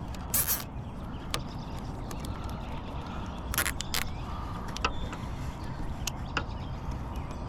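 A few sharp clicks and knocks of small hardware being handled, the loudest about half a second in and a pair around three and a half to four seconds in, over a steady low rumble.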